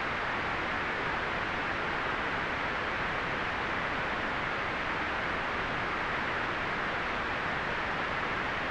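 Steady white noise: an even, unchanging hiss, strongest in the middle range and dull at the top.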